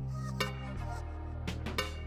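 Background music with sustained low notes and a few sharp percussive hits.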